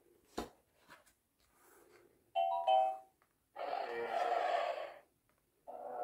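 Page of a children's sound book turned with a click, then the book's small electronic speaker plays a two-note ding-dong chime about two seconds in, followed by two longer rough animal-like creature sound effects, the second starting near the end.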